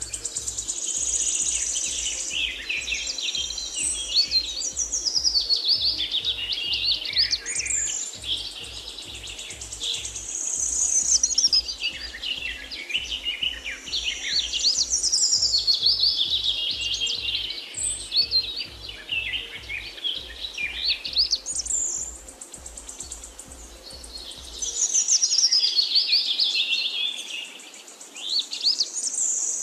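Birdsong: several birds chirping and trilling in fast, high runs, over a faint low pulse that stops near the end.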